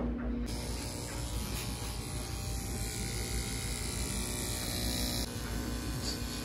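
Small cordless electric pet trimmer running with a steady buzz while it trims the fur around a dog's paw.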